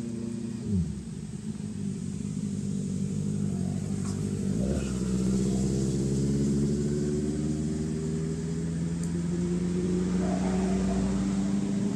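A motor vehicle engine running with a steady hum. Its pitch drops steeply about a second in, then a deeper engine note comes in about five seconds in and holds steady, rising slightly.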